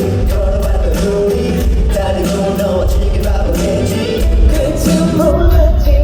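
Korean pop song sung over a steady drum beat and heavy bass, played loud through a concert sound system during a sound check.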